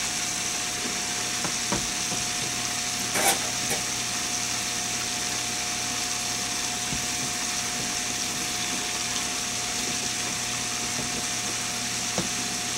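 Chicken frying in hot grease inside a closed pressure cooker: a steady muffled sizzle with a thin constant tone under it, and one short sharp clack about three seconds in. The cooker is still coming up to pressure and is not yet venting from its spout.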